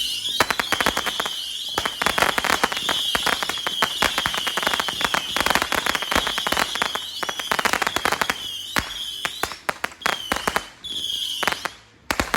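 Fireworks: a long run of rapid crackling pops, like a string of firecrackers, thinning out after about nine seconds, with a high wavering whistle running over it.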